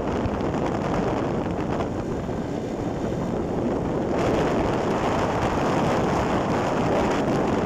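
Wind rushing over the microphone of a phone on a moving motorcycle, mixed with road and motorcycle noise. The rush gets brighter and a little louder about four seconds in.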